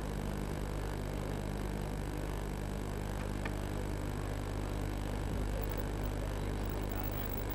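Steady low hum with a hiss over it and no clear event, apart from one faint tick about three and a half seconds in.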